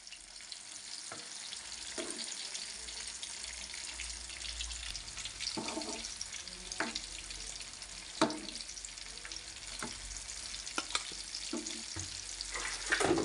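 Scrambled egg and vegetable filling sizzling in a frying pan while a wooden spatula stirs it, with short scrapes and knocks of the spatula against the pan over a steady hiss; the sharpest knock comes about eight seconds in.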